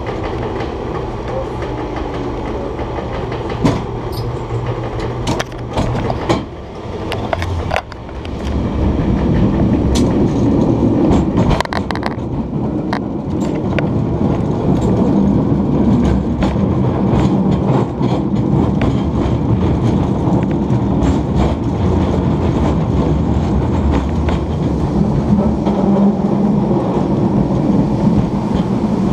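San Francisco cable car running on its rails: a steady rumble and rattle with scattered sharp clicks through the first dozen seconds, growing louder about eight seconds in.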